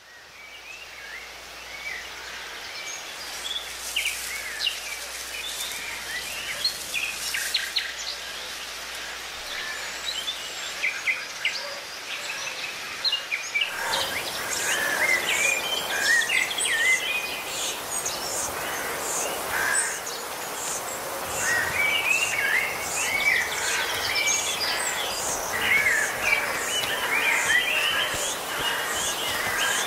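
Woodland ambience of many birds chirping and singing, fading in at the start. About halfway through it becomes fuller, and a high chirp repeating about twice a second joins in.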